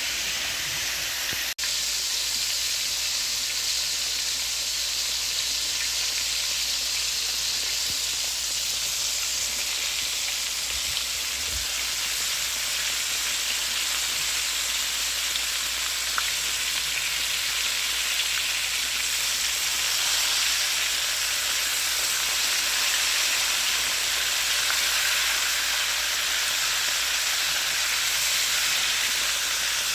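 Catfish pieces in a flour-and-egg batter frying in hot oil, a steady sizzle. The sound drops out briefly about a second and a half in, and the sizzle grows a little louder later on.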